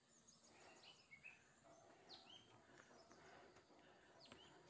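Near silence with faint birds calling: a few short chirps and a couple of quick downward-sweeping whistles.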